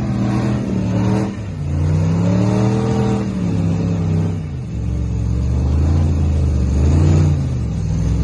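Off-road vehicle's engine revving hard under load, its pitch climbing and dropping back in a few long surges.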